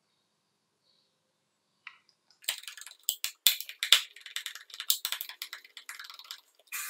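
Screwdriver working the screws of a plastic battery adapter base: a quick, irregular run of clicks and scrapes, starting about two and a half seconds in. Just before the end a steady whir of a small motor starts.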